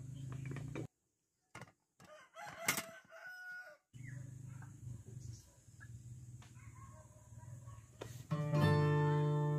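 A rooster crows once, about two and a half seconds in, over low outdoor background noise. Acoustic guitar music starts loudly near the end.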